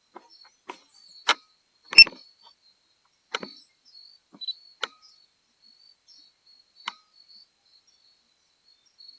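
A series of irregular sharp clicks and taps, about a dozen, the loudest about two seconds in, over a faint, high, steady whine; the clicks die away after about seven seconds.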